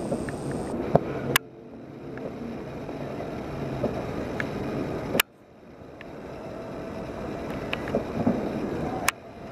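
Distant fireworks display: a continuous rumble of bursts and crackle, with sharp loud bangs at about one and a half seconds, five seconds and near the end, the sound dropping away sharply after each and then building back up.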